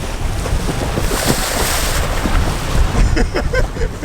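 Strong wind buffeting the microphone in a steady low rumble, with waves washing against the shore.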